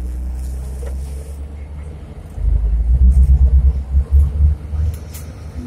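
Diesel engines of Komatsu crawler pipelayers rumbling under load as they hold a heavy pipe joint on their side booms. The rumble is steady at first, then from about two and a half seconds in it turns heavier and uneven, rising and falling in swells.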